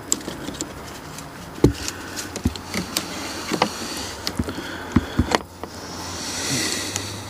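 Scattered metallic clicks and knocks of tools and parts being handled while a boat's steering cable is taken apart, the loudest a sharp knock about a second and a half in. A soft hiss swells and fades near the end.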